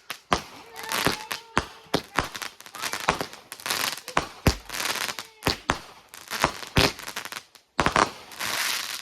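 Consumer firework cake (a 25-shot repeater) going off: an irregular string of sharp bangs and pops, with hissing, crackling bursts between them. A dense crackle near the end stops abruptly.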